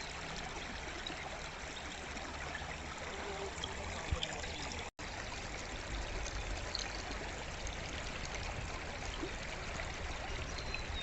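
Forest stream flowing, a steady rushing and trickling of water, cut by a momentary dropout to silence about five seconds in.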